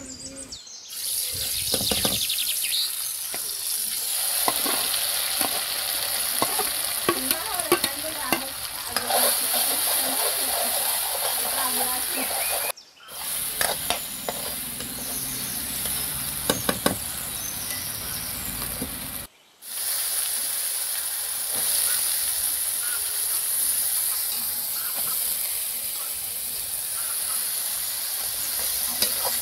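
Food frying in hot mustard oil in a metal kadai: a steady sizzle, with a steel spoon scraping and clinking against the pan as it stirs. The sizzle breaks off briefly twice.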